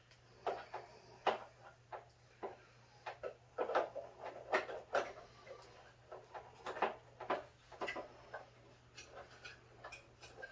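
Plastic parts of a Vornado tower fan's base clicking and knocking irregularly as they are handled and lined up to fit together.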